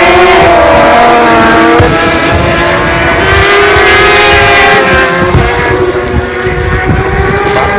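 Superbike racing motorcycles passing at speed, their engines running at high revs with the pitch rising and falling as they go by. The sound is loudest and brightest about four seconds in.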